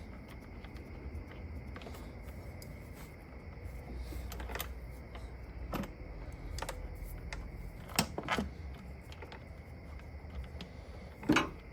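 Scattered light clicks and knocks of hands and tools working in a car's engine bay while searching for a dropped bolt. A sharper knock comes about 8 seconds in and again near the end, over a faint low hum.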